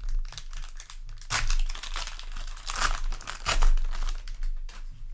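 Crinkling and tearing of a trading-card booster pack's plastic wrapper as it is handled and torn open, in several crackly bursts, the loudest a little past the middle.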